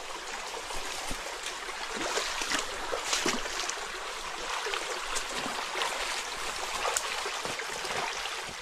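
Shallow river flowing steadily over stones, with irregular splashes and knocks of footsteps wading through the water.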